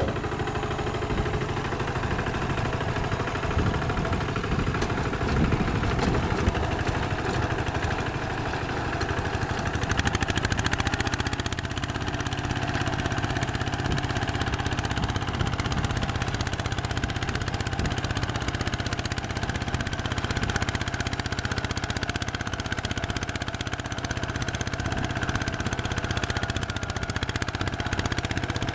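Old Kubota walking tractor's single-cylinder diesel engine running steadily while driving a rotary tiller through the soil. About ten seconds in, its note settles into a steadier, even drone as the tilling gets under way.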